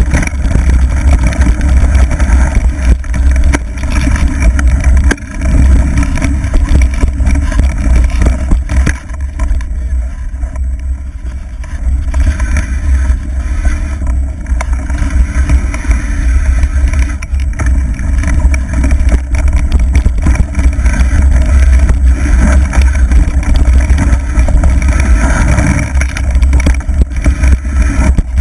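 Heavy wind rumble on the camera's microphone mixed with the tyre and rattle noise of a mountain bike running fast down a rough dirt trail; it eases for a couple of seconds about ten seconds in.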